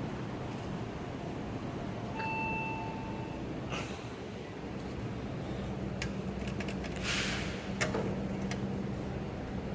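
Elevator chime sounding a single ding about two seconds in, held for about a second. Clicks and a short rushing noise come around seven seconds in, over a steady low hum.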